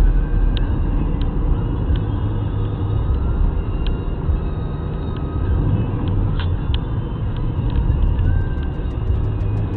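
Car driving, heard from inside the cabin: a steady low rumble of engine and road noise, with a few faint irregular clicks.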